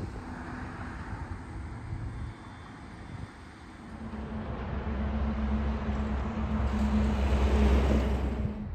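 Freight train of covered hopper cars rolling past on the track: a steady rumble with a low hum that builds louder in the second half and cuts off suddenly near the end.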